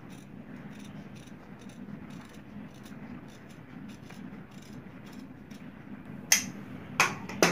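Large steel tailor's shears cutting through stiff buckram interfacing: a run of faint, crisp clicks as the blades bite, then three sharper snaps near the end. A low, steady hum sits underneath.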